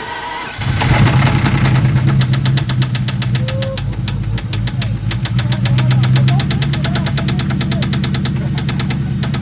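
Ford Mustang's 4.6-liter two-valve V8 catches about half a second in and runs with a rapid, even knocking. It settles to a lower idle about six seconds in. The knock is the engine's known rod knock, a worn connecting-rod bearing.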